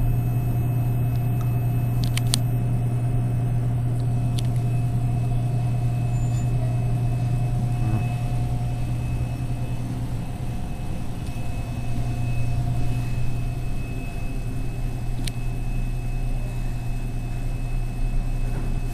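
Vending machines humming: a steady low electrical hum with a faint higher whine above it and a few soft clicks.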